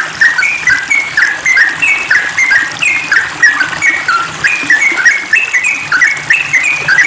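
Yellow-vented bulbul (trucukan) singing a fast, unbroken run of short, bubbly whistled notes in quick succession, the long continuous 'ropel' song.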